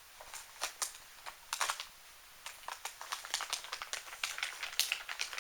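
Plastic kit packaging and parts being handled: irregular light clicks, taps and crinkles, sparse at first and coming thick and fast in the second half.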